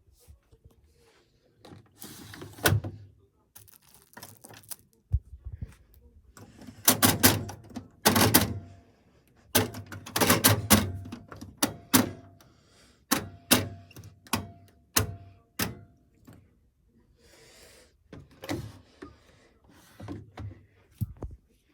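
Zanussi FL984CN front-loading washing machine in its wash phase: the drum turns the load in bouts, giving irregular thuds and clicks with short pauses between bouts. A faint steady whine runs through the middle of one bout.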